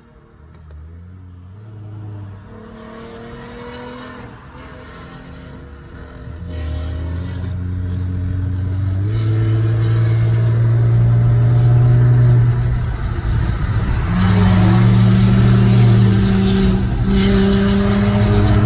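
Car engine and exhaust running under load, its note holding steady pitches that step up several times. It grows much louder over the first half and stays loud.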